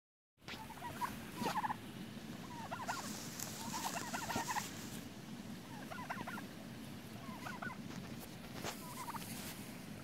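Heritage black turkeys gobbling: repeated short, rapid, warbling bursts of gobbles, about every second or two.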